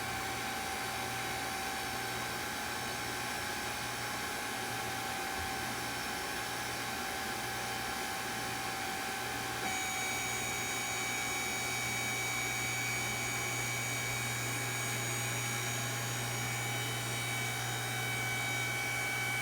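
Hydraulic power unit of an automatic seat belt test machine running with a steady hum and whine. About halfway through, the sound steps up slightly and higher whine tones join in as the machine starts its test cycle and builds pressure.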